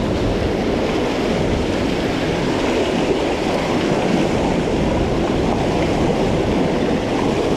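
Steady rushing of shallow, fast river water flowing over a concrete causeway while a bicycle rides through it, its tyres swishing and splashing in the water.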